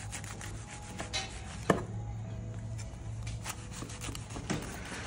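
A chef's knife sawing through toasted ciabatta sandwiches on a wooden cutting board: a run of short crusty scrapes and crackles, with one sharper knock about a second and a half in.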